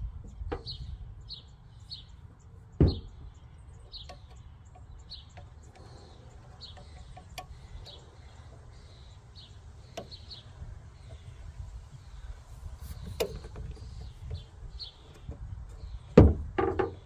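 A small bird chirping repeatedly in short high notes, about one to two a second. Over it come scattered sharp metallic clicks and knocks as a hood lift strut is worked off its ball-stud mount, the loudest about three seconds in and just before the end, over a steady low rumble.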